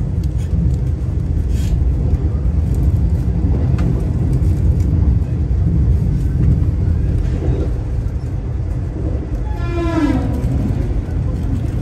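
Vande Bharat Express electric multiple unit running, a steady low rumble. Near the end, a brief tone with overtones slides down in pitch over about a second.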